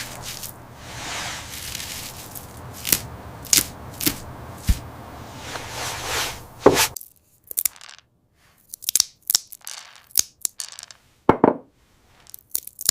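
Small clicks, crackles and scrapes of objects being handled over a steady hiss. The hiss cuts off suddenly about seven seconds in, and after that the clicks come one by one with quiet between them.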